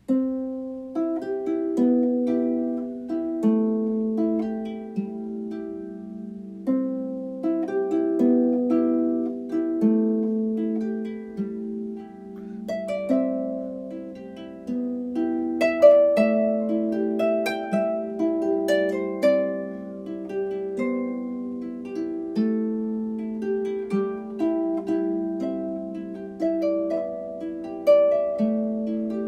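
Harp music: a steady stream of plucked notes that ring and overlap, starting suddenly out of near silence.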